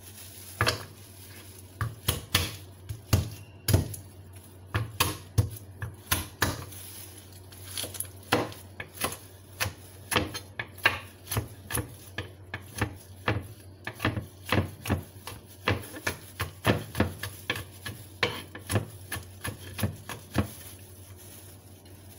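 Kitchen knife chopping garlic on a wooden cutting board: a long run of sharp knocks, spaced unevenly at first, then steadier at about two to three a second.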